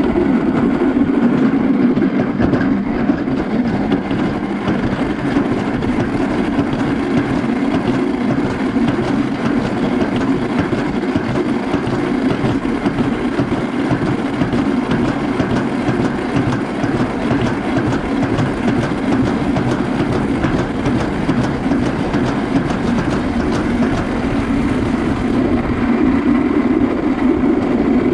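Toboggan sled running fast down a steel slide track: a steady, loud rumble with rapid clattering clicks throughout.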